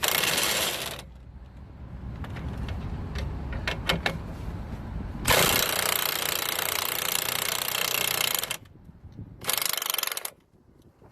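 Power tool running in three bursts, a short one at the start, a long one of about three seconds in the middle and a short one near the end, with scattered clicks and knocks of hand tools between them on suspension parts.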